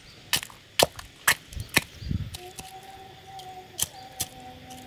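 Eggshells being pounded to pieces in a dried coconut-shell half: a series of sharp knocks, about two a second, seven in all with a short pause in the middle.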